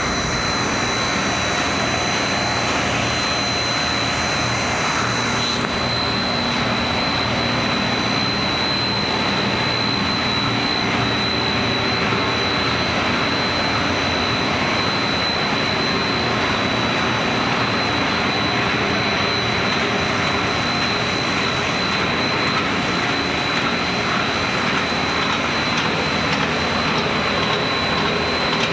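Filled pillow snack production line machinery running: a steady mechanical noise with a constant high whine.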